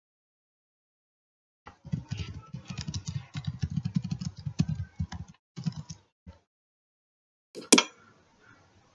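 Typing on a computer keyboard: a quick run of keystrokes for about three and a half seconds, then a few scattered ones. A single louder click near the end, from a mouse button.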